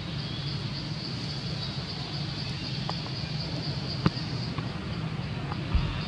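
Outdoor ambience: a steady low engine-like hum with a continuous high, even drone like insects, broken by a sharp click about four seconds in and a low thump near the end.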